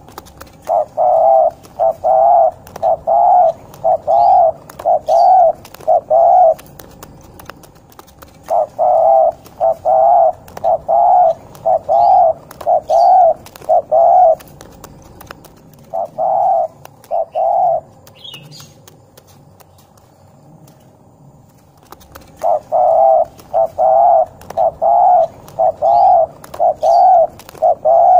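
Spotted dove (derkuku) singing a 'ngorok' gacor song: runs of coos at about one and a half a second, broken by short pauses and one longer pause about two thirds of the way through. Each coo wavers in pitch.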